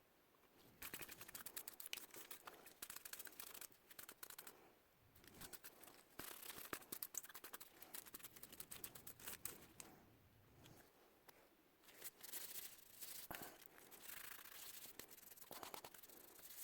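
Paint brush scrubbing grease off salvaged microwave electrical components with isopropyl alcohol: faint, rapid brushing strokes in three bouts, pausing briefly about four and eleven seconds in.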